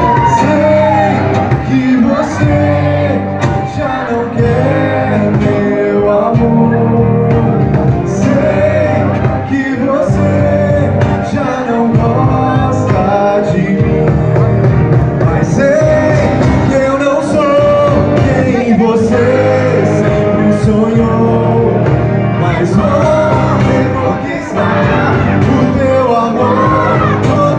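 Amateur rock band playing live through small amplifiers: electric guitars and a drum beat under a sung lead vocal.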